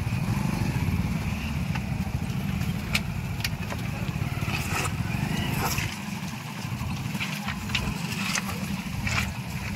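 Motorcycle engines running at idle, a low rumble that drops off about six seconds in, with scattered clicks and knocks from the rocks.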